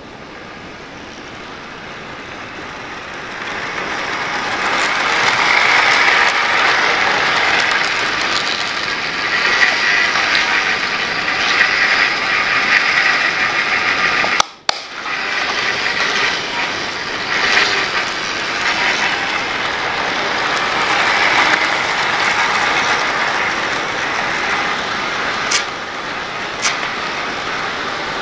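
OO gauge class 43 HST model train running round the layout. Its motor and wheels on the track make a steady mechanical rattle that builds over the first few seconds, with a sudden momentary drop about halfway through and a couple of sharp clicks near the end.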